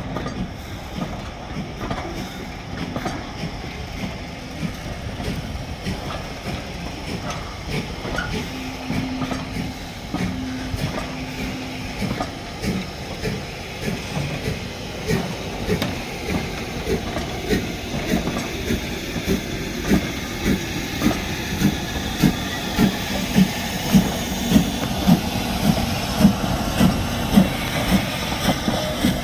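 A train running on the rails, with a continuous rumble and regular rhythmic beats about two a second that grow steadily louder as it comes closer. A short steady low tone sounds for a few seconds about nine seconds in.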